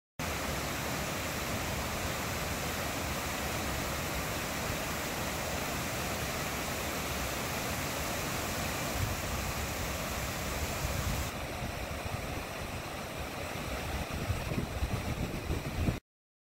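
Rushing water over a shallow river's rocky ledges and small cascades, a steady noise. A little past the middle it turns slightly duller, and near the end there are uneven low bumps.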